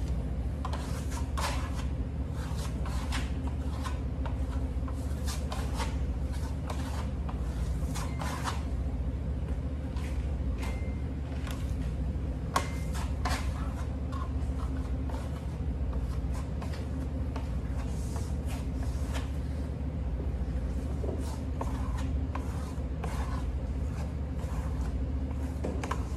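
Trowel scraping and spreading a second coat of green grassello (lime-putty Venetian plaster) across a sample board in many short, repeated strokes, over a steady low hum.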